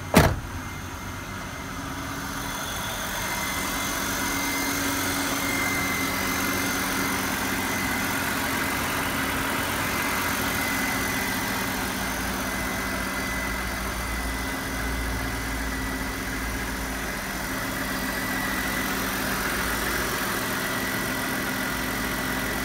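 BMW E39 528i's M52 2.8-litre straight-six idling steadily under an open bonnet, with a thin steady high-pitched whine over it; it gets louder over the first few seconds, then holds. A single sharp thump at the very start, the car door being shut.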